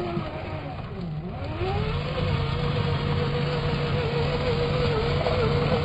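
Whine of a radio-controlled scale crawler's electric motor and gearbox as it drives through mud. The whine slows and drops in pitch about a second in as the motor bogs under load, then rises again and holds steady.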